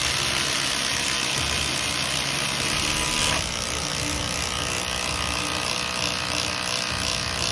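Two 12-volt impact drivers, a Milwaukee M12 Fuel Gen 3 and a DEWALT 12V Xtreme, hammering long screws into stacked plywood at the same time. About three seconds in, the Milwaukee's screw is driven home and it stops, and the DEWALT keeps hammering on alone, a little quieter.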